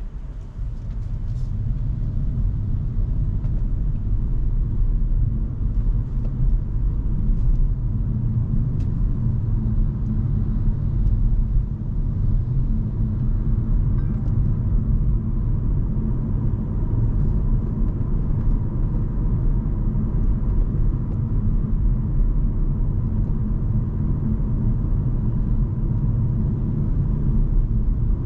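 Hyundai Kona Hybrid driving, with a steady low road-and-tyre rumble. It swells over the first couple of seconds, then holds even.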